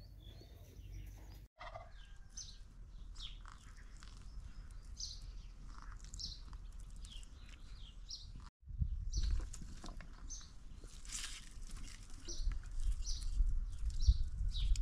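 Small birds chirping, short high calls repeating every second or so, over a low rumble that grows stronger in the second half.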